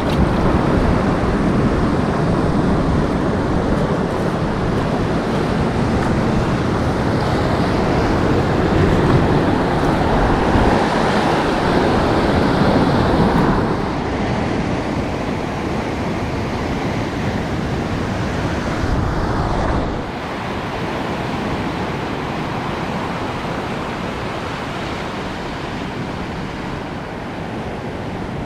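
Sea surf washing over rocks and breaking on the shore, with wind rumbling on the microphone. The level drops abruptly about fourteen seconds in and again about twenty seconds in.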